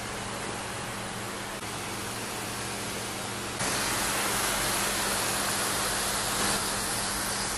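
Hand-pump pressure sprayer hissing steadily as it mists cleaner onto car paint, louder from about three and a half seconds in, over a faint low steady hum.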